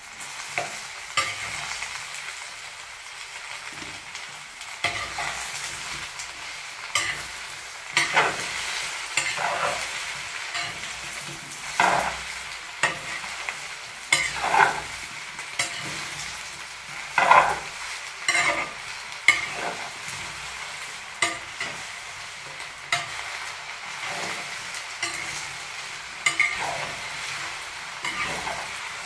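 Onion and chilacayote squash frying in hot oil in a cazuela with a steady sizzle. The pot is stirred throughout, and a short scrape of the utensil against it comes every second or two.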